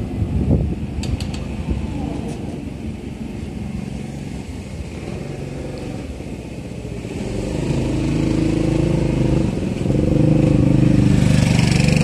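Street noise with a motor vehicle's engine running, growing louder in the last few seconds.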